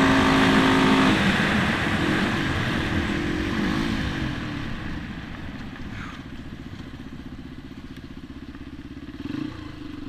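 1984 Honda XR dirt bike's single-cylinder four-stroke engine held flat out at speed, with air rushing over the microphone. About a second in, the throttle is rolled off and the engine winds down over several seconds to a low, steady putter as the bike slows.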